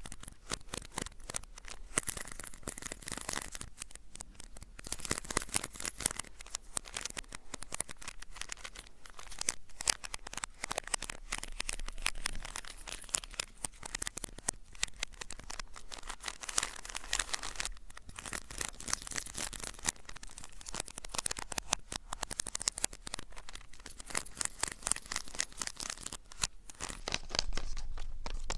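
Close-miked ASMR trigger sounds: dense crinkling and scratching made of many quick, irregular clicks, swelling and easing in uneven waves.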